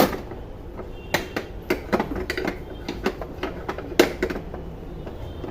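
Irregular clicks and knocks from handling the opened RO water purifier's parts, the loudest about four seconds in.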